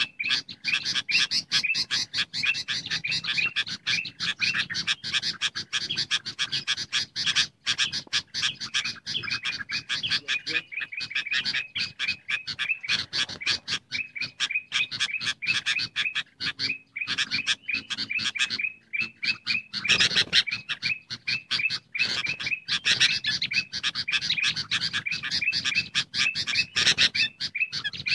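Bulbuls chattering in a dense, unbroken chorus of quick overlapping calls. It is a bird-trapping lure mix of noisy sooty-headed bulbul calls combined with ruby-throated bulbul.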